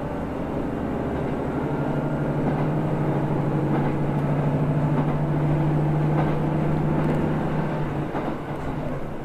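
Diesel engine of a JR Central KiHa 75 railcar (American Cummins-built) running as the train moves, a steady drone over the rumble of the wheels, heard from inside the carriage. The engine note fades about eight seconds in.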